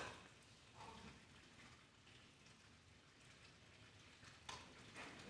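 Near silence: faint room tone, with a brief soft rustle at the start and about a second in, and a few faint small clicks near the end.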